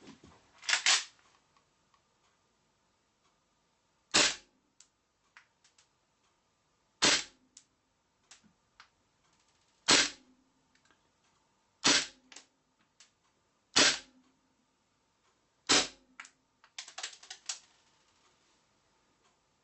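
Marushin AMT Automag gas blowback airsoft pistol firing single 8mm BBs through a chronograph. The sharp shots come one at a time, two to three seconds apart, each followed by a few faint clicks. A quick run of small clicks comes near the end.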